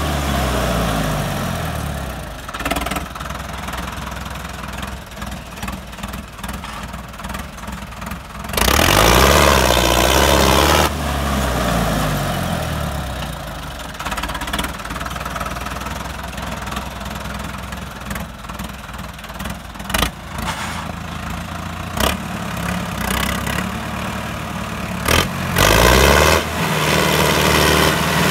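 Sonalika tractor's diesel engine running and revving hard while its rear wheels spin in loose dirt. Two long loud revs, one about a third of the way in and one near the end, each rising in pitch as it picks up, with steadier lower running between them.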